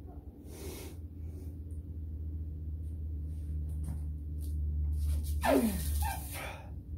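A man breathing hard and straining while bending a steel bolt with his bare hands, with a loud falling-pitched grunting exhale about five and a half seconds in, over a steady low hum.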